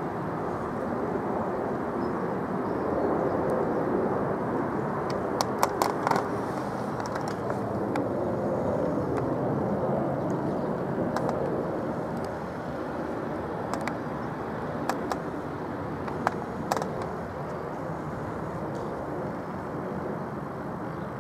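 A steady outdoor rumble of transport noise that swells over several seconds and then eases off, with a few sharp clicks along the way.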